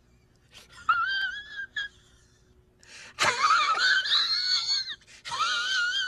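A man's high-pitched, wheezing falsetto laugh in three squealing bouts with a wavering pitch, the middle one the loudest and longest.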